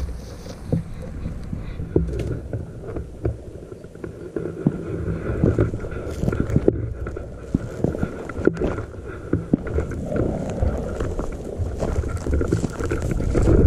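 Low wind rumble on the microphone, with scattered cracks and rustles of brush as a hunter moves a shotgun through dense dry scrub.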